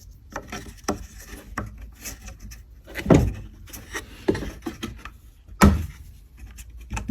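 Handling noise from working on a guitar pedalboard: irregular clicks, knocks and rubbing, with two louder thumps about three and five and a half seconds in.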